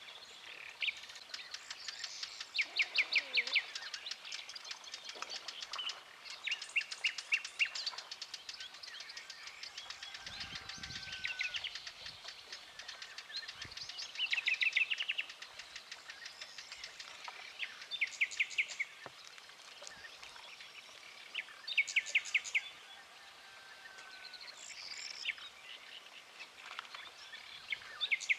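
Wild birds singing: short phrases of rapid repeated high notes come every few seconds, with fainter calls and whistles between them.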